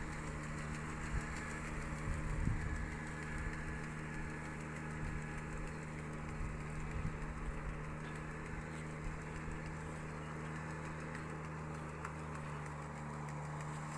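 Engine of a rice transplanter running at a steady pace, a constant low hum that does not change.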